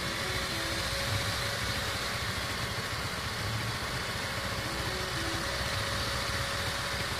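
Sumitomo SH210 hydraulic excavator's diesel engine running steadily while the boom and bucket work, with a faint steady whine above the engine's hum.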